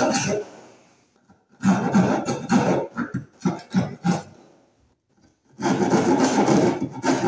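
Hand keyhole saw cutting wood in quick back-and-forth strokes, widening a cut-out for a metal electrical box, with two brief pauses in the sawing.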